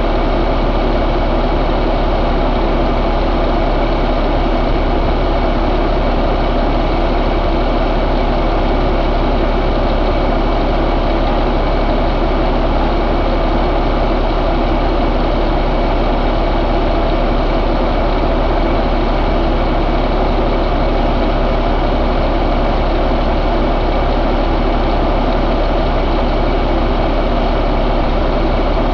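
A 2015 Cummins ISX15 inline-six diesel idling steadily.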